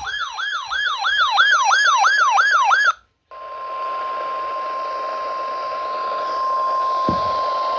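An electronic siren-like alarm yelps up and down about three times a second, then cuts off about three seconds in. After a brief silence, the NOAA Weather Radio 1050 Hz warning alarm tone sounds as one steady high tone over radio static, signalling that a warning broadcast is about to begin.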